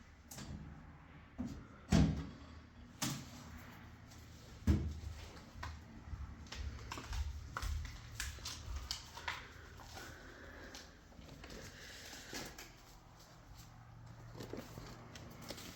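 Indoor handling sounds: scattered knocks and clicks, with two heavier thumps about two seconds and about five seconds in, over a low steady hum.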